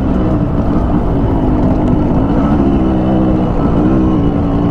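Yamaha RX100's two-stroke single-cylinder engine running under way on a dirt track, its note rising and falling slightly, over a dense low rumble.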